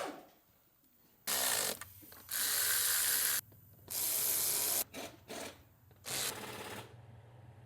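Ratchet wrench with a Torx bit clicking in several short runs, about a second each with gaps between, as the engine oil drain plug is threaded back in.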